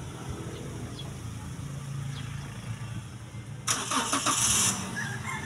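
Car engine idling with a steady low hum. About two-thirds of the way through, a loud hiss lasting about a second cuts across it.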